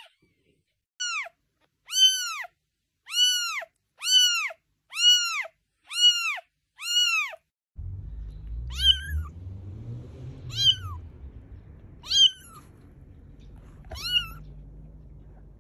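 Kitten meowing over and over: seven clear meows about one a second, each rising and falling in pitch. These are followed by four shorter, higher meows about every second and a half against a low rumble.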